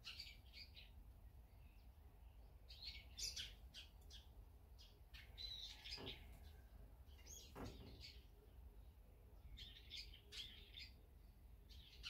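Small birds chirping faintly in short clusters of quick, high chirps. There are two soft knocks, about six and seven and a half seconds in.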